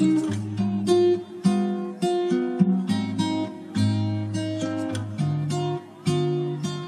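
Background music played on acoustic guitar, with picked notes and chords.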